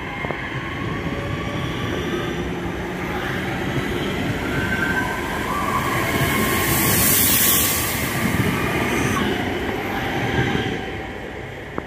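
Two coupled West Midlands Railway Class 323 electric multiple units passing along the platform. The wheels rumble steadily on the rail with high whining tones over them; the sound grows louder to a peak about seven seconds in, then eases off as the last car goes by.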